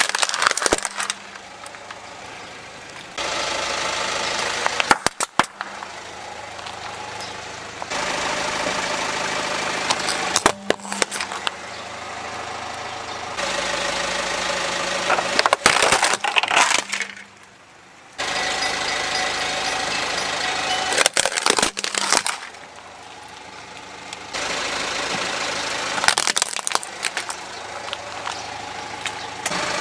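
A car's engine idling as its tyre rolls onto plastic toy vehicles, with sharp cracks and crunches of the plastic breaking under the weight. This happens several times, about every five seconds, with a steady engine hum between the crushes.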